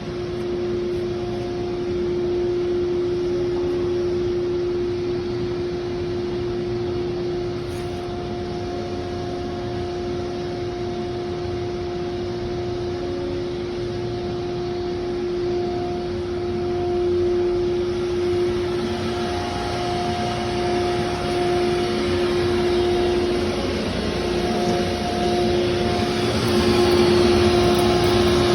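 CNC router running steadily as it machines a door, its spindle giving a constant high hum over the noise of the cut, which gets louder over the last few seconds.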